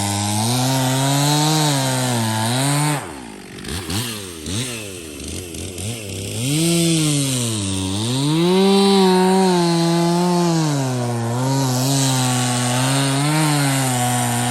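A small engine running hard, its pitch wavering up and down. About three seconds in it drops away with falling and rising sweeps, then climbs back to high revs about three seconds later and runs on.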